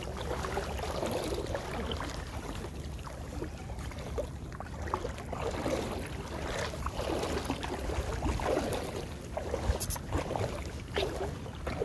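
Shallow seawater lapping and swirling around a wading angler while wind rumbles on the microphone. A couple of sharp clicks sound near the end.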